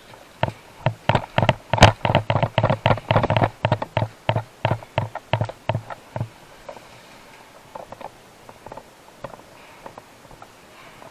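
A quick series of sharp knocks, about three or four a second, that stop about six seconds in, followed by a few faint scattered taps.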